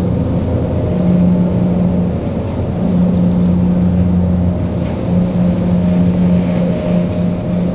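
Steady low engine hum, droning on without a break while its pitch wavers a little.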